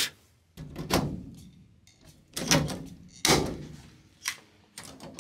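Hollow knocks and bumps, about six in five seconds and irregularly spaced, each with a short ringing tail, from the wing and hinged control-surface panels of a DINGO ultralight being handled at the hinge during assembly.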